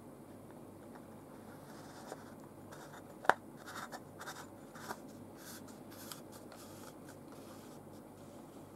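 Hands fitting a screw-in lens filter onto a camcorder lens. One sharp click about three seconds in is followed by a second or two of short scratchy rubbing and ticking as the filter ring is turned on the lens threads.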